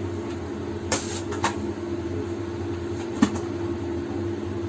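Steady low mechanical hum of a kitchen appliance, with three short sharp clicks about one second, a second and a half, and three seconds in.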